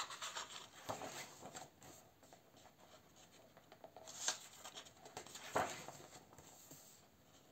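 Faint paper rustling as the pages of a new paperback colouring book are turned and pressed flat by hand, a few separate brushes and swishes, the loudest about five and a half seconds in.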